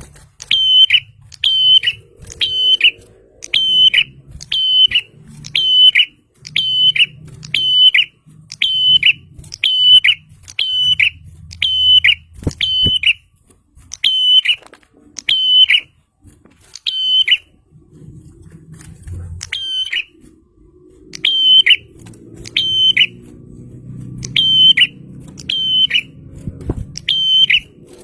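Prinia (prenjak) calling: a long series of short, sharp, high notes, each dropping at the end, repeated a little more than once a second. The series breaks off for a few short gaps in the second half.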